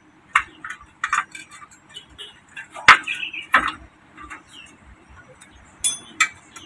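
Metal clinks and taps of hand work on a scooter's rear brake and exhaust fittings: a handful of sharp, separate clicks, the loudest about three seconds in and two more close together near the end.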